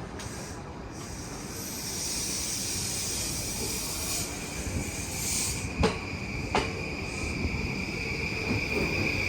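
JR East E235-1000 series electric train pulling out of the station: running noise and a hiss build up, and a steady high whine sets in. About six seconds in come two sharp clacks of wheels over rail joints.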